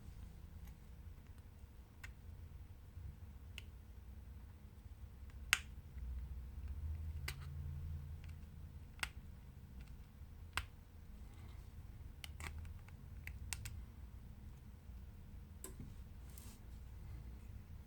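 Scattered sharp clicks and taps of small repair tools and smartphone parts being handled, about a dozen irregularly spaced, the loudest about five and a half seconds in, over a low steady background hum.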